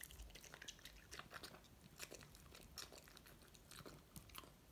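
Boston terrier chewing a peeled mandarin segment: faint, irregular wet clicks and smacks of its mouth.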